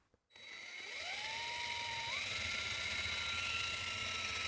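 Cordless drill driving a 5-inch hole saw into the thick plastic wall of an Infiltrator 1060 septic tank. The motor's whine starts about half a second in, rises in pitch, steps higher about two seconds in, then holds steady as the saw cuts.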